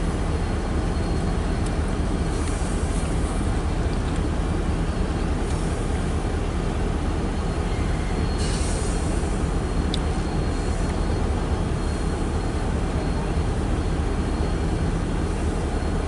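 CN freight train rolling past, a steady low rumble of wheels on rails with brief high screechy patches a few times.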